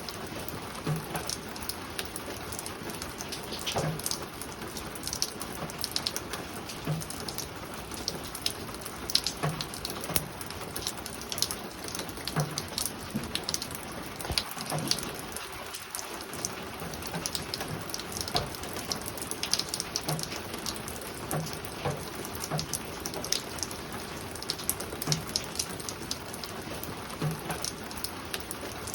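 Spring rain falling on a roof: a steady rain hiss with many separate drops striking sharply, and now and then a softer, lower knock.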